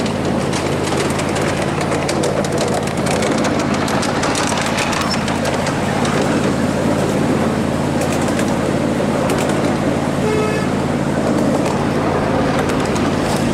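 Ride-on miniature train running along its track: a steady engine drone with the wheels clicking on the rails, and one short horn toot about ten seconds in.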